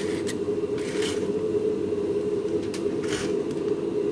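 Steady low mechanical hum, with a few brief crinkles of aluminium foil about a second in and again near three seconds.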